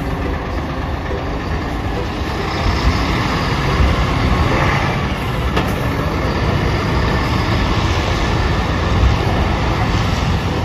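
Keisei Bus highway coach's diesel engine running steadily as the coach pulls away and turns, a steady low rumble with road noise.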